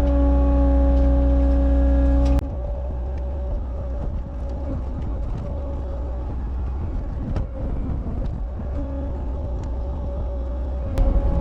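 Cat 279 skid steer's diesel engine running steadily. Its level drops abruptly about two seconds in and jumps back up near the end.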